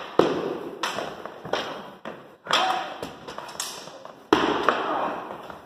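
Spear, sword and round wooden shield striking each other in a sparring bout: a rapid run of sharp knocks and thuds, about one or two a second, each ringing out in the hall's echo.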